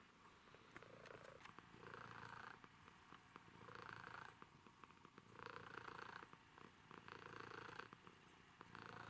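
A domestic cat purring quietly and continuously while being petted. The purr swells and eases with each breath in and out, about every one and a half seconds.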